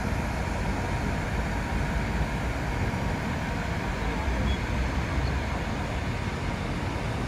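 Steady city street noise: road traffic with a continuous low rumble.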